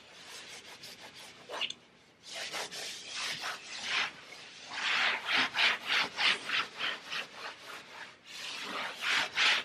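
A cloth rubbed back and forth against a painted wall, scrubbing off scuff marks. It starts after about two seconds as a quick run of rubbing strokes, about three a second.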